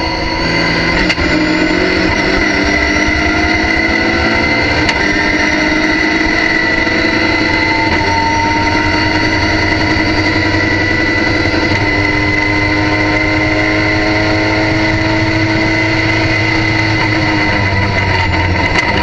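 Racing car engine heard from inside the cockpit at full throttle, pulling up through the gears from third to sixth: the pitch climbs steadily and drops back briefly at each upshift.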